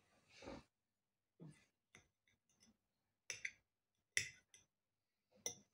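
Faint clicks and clinks of a metal fork against a plate as a fried potato is cut, coming singly about once a second, about six of them.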